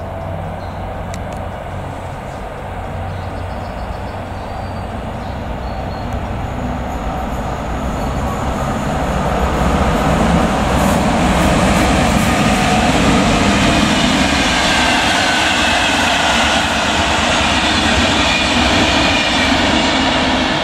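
Two Siemens Vectron electric locomotives running in tandem and hauling a passenger train, approaching and passing close by. The rumble and rush grow louder over the first ten seconds or so, then hold steady as the locomotives and coaches roll past, with steady high-pitched tones in the rush.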